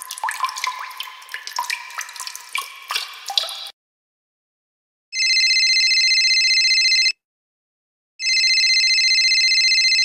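Water drops plinking in quick, irregular succession for about three and a half seconds. After a short silence, a telephone rings twice, each ring a warbling tone lasting about two seconds with a second's pause between.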